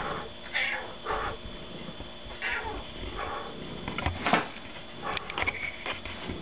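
A house cat giving a series of short mews and chirps. Several quick clicks and knocks follow near the end.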